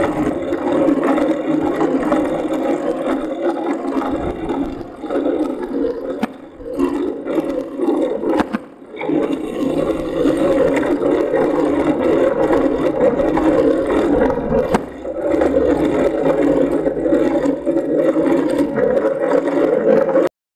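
Riding noise from a moving bicycle, picked up by a camera mounted on the bike: a steady rush of wind and tyre noise with scattered rattles and clicks from the bike's frame and fittings. It dips a few times and cuts off suddenly near the end.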